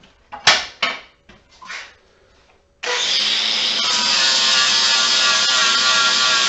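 A few sharp knocks of tools being handled, then about three seconds in a Milwaukee grinder starts up and runs steadily with a high motor whine, deburring the top edge of a freshly drilled and tapped hole in a metal bench top.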